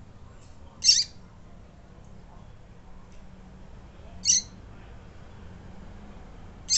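Female coleiro (double-collared seedeater) calling: three short, high peeps spaced a few seconds apart, the last right at the end.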